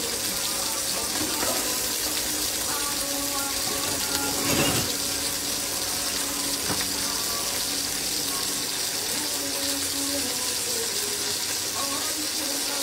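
Pans cooking on the stove: a steady sizzling hiss as the linguine simmers in tomato broth and the lobster pieces fry, with a brief louder rush about four and a half seconds in.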